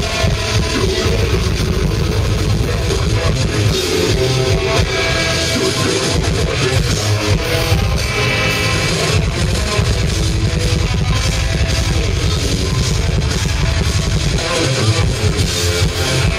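Live technical death metal band playing: distorted electric guitars and bass over a drum kit, loud and unbroken.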